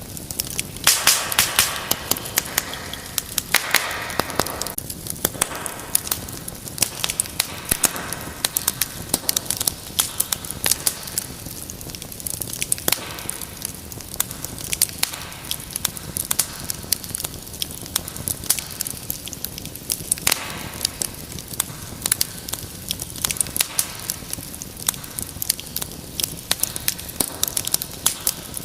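Wood fire in a fireplace crackling, with irregular sharp pops and snaps over a steady low hiss of flames, busiest about a second in.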